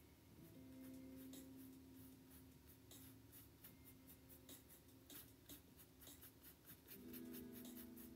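A fine paintbrush dabbing and stroking acrylic paint onto a canvas: a faint, irregular run of short scratchy strokes, several a second.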